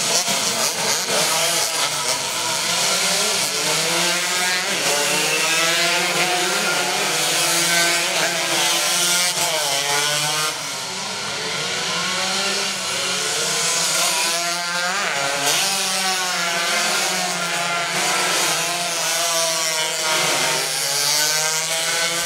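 Several two-stroke 125 cc underbone race motorcycles at full throttle, their high-pitched engine notes rising and falling as they rev through the gears and pass one another.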